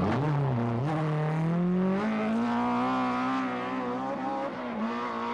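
BMW M3 rally car's four-cylinder engine revving hard as it accelerates out of a tight bend, its pitch climbing through the gears with short dips at the gear changes, about a second in and again near the end.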